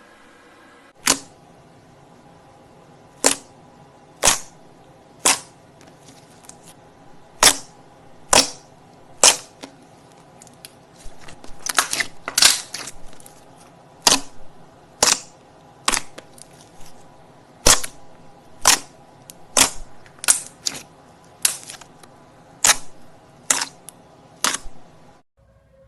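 Slime being pressed and poked, giving sharp popping snaps about once a second, with a quick run of crackling pops about halfway through. A steady faint hum sits underneath and cuts off near the end.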